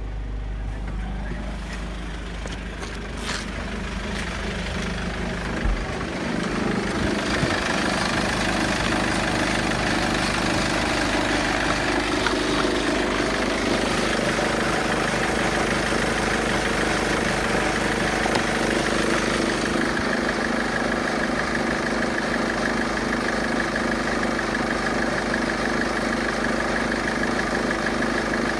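Mercedes OM651 2.2-litre four-cylinder common-rail diesel idling steadily. It sounds muffled at first, then louder and clearer with the bonnet open from about six seconds in. A sharp click comes about three seconds in and a short knock near six seconds.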